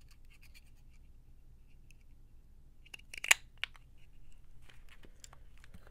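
A small hand-held paper hole punch snapping through paper once, a sharp click about three seconds in, with lighter clicks and paper handling around it.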